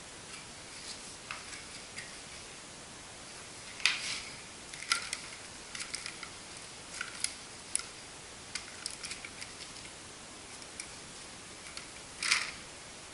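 Gloved hands handling small plastic plant pots and potting soil while transplanting seedlings: scattered light clicks and rustles, with louder rustles about four seconds in and near the end.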